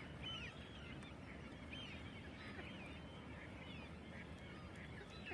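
A flock of waterbirds calling, heard faintly, with many short calls overlapping one another.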